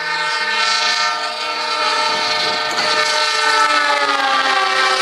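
A KAI CC 206 diesel locomotive's horn sounding one long, loud blast, the semboyan 35 warning signal at a level crossing, as the train comes past at speed. From about two seconds in, the noise of the train's wheels and cars rises under the horn, and near the end the horn's pitch drops slightly as the locomotive passes.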